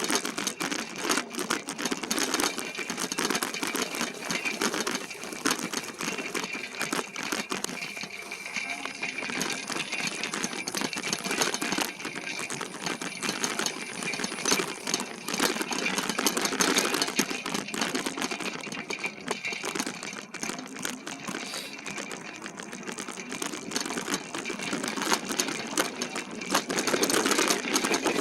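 E-bike rolling over a rough trail, its frame and parts rattling in a continuous fast clatter of small knocks.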